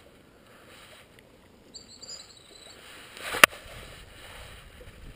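A single sharp knock about three and a half seconds in, over faint outdoor background noise, with a short high-pitched chirp shortly before it.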